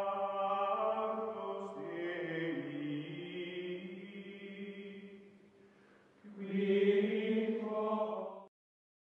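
Outro music of wordless choral chanting: held chords with a lower line that steps down, fading out about halfway through. A louder chord then swells in and cuts off abruptly near the end.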